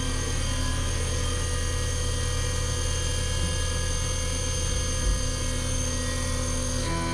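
Doosan CNC vertical mill running its program: the spindle turning a 1-inch end mill at speed gives a steady multi-tone whine while the machine moves the tool toward the aluminium part. The tone changes near the end.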